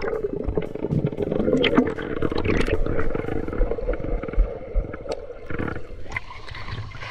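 Muffled sloshing and gurgling of water, with scattered knocks and low thumps.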